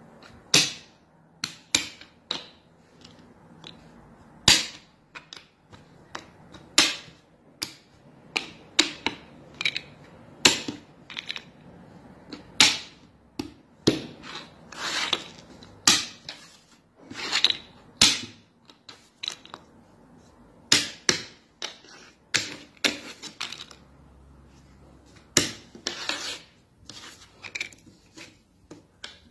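Plastic draughts pieces tapping and clicking on a wooden board as they are moved and set down quickly. The clicks are sharp and irregular, sometimes two or three in quick succession.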